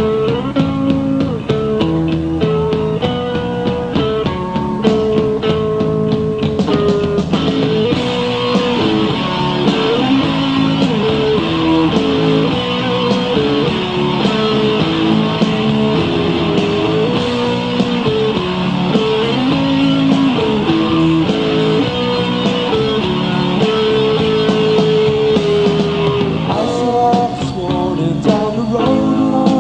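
Rock band playing live: guitar-driven rock music with a melody line over chords.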